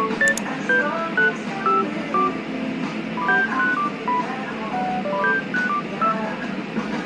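Background music: a quick melody of short, plinking notes over a steady hiss.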